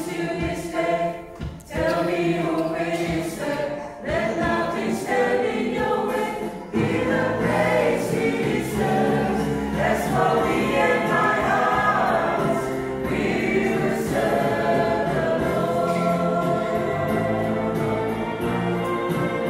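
Mixed church choir of men's and women's voices singing a hymn together, growing fuller about seven seconds in.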